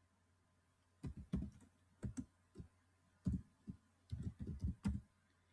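Computer keyboard being typed on: a run of about a dozen quick keystroke clicks in an uneven rhythm, starting about a second in.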